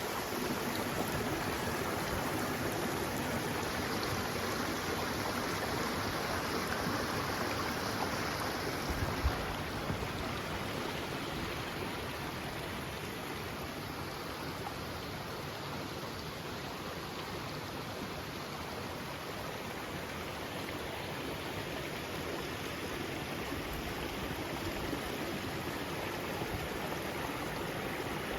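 Steady rushing of flowing water, an even hiss with no breaks, with a brief low bump about nine seconds in.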